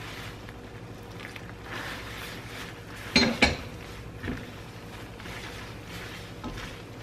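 Silicone-tipped metal tongs tossing spaghetti in cream sauce in a frying pan: soft scraping and stirring, with two sharp clanks close together about three seconds in as the tongs knock against the pan, and a lighter knock a second later, over a steady low hum.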